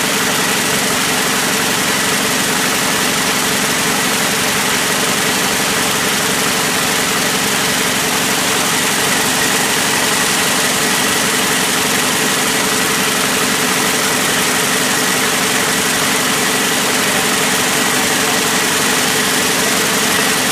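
High-speed braiding machines running, their bobbin carriers circling: a loud, steady mechanical noise with a constant hum and a faint high whine held throughout.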